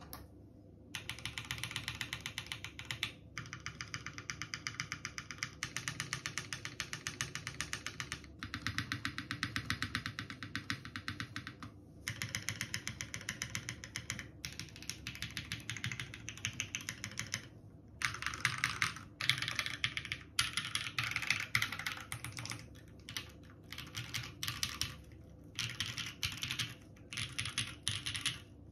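Typing on a TGR Jane v2 ME custom mechanical keyboard with lubed JWK Tungsten linear switches on a top-mounted carbon fibre plate and GMK keycaps: runs of rapid keystrokes broken by brief pauses.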